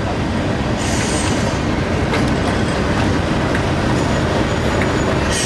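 English Electric Class 37 diesel-electric locomotive running slowly past at close range, its V12 diesel engine giving a loud, steady rumble. A short hiss comes about a second in and again near the end.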